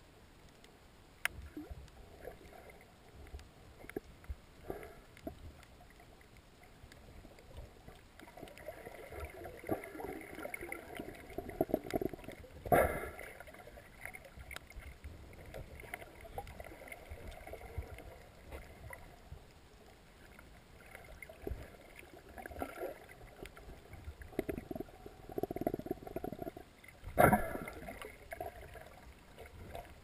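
Muffled underwater sound picked up through a GoPro's waterproof housing: water swishing against the case with scattered small clicks, swelling twice, and two sharp knocks, one a little before halfway and one near the end.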